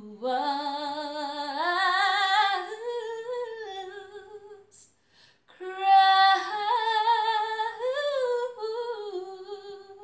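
A woman singing unaccompanied in two long phrases with a short breath between them. Her voice climbs in pitch through the first phrase, and the second is held with vibrato.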